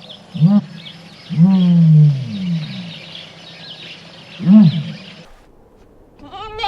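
A large animal's deep calls: a short call, a long falling call, and another short call, over faint high chirping. The chirping stops, and near the end a new, quavering bleat begins.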